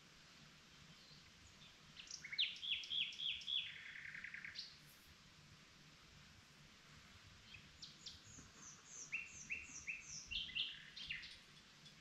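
Nightingale singing: two song phrases. The first, about two seconds in, is a run of quickly repeated sharp notes that ends in a fast, lower trill. The second, from about eight seconds, is a series of repeated high notes that drops to a run of lower ones.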